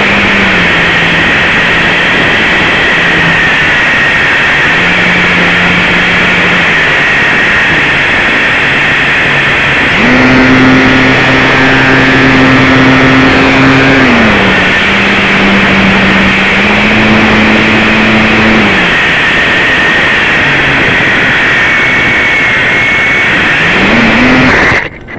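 RC plane motor and propeller heard from a camera mounted right behind the propeller: a loud, steady buzz whose pitch steps up and down with the throttle, highest for a few seconds about ten seconds in. Near the end it cuts off abruptly as the plane crashes, snapping the propeller and popping the motor mount off.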